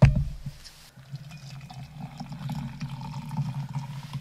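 A sharp thump at the start, then hot water pouring steadily from a metal thermos into a stainless steel tumbler onto hot chocolate mix.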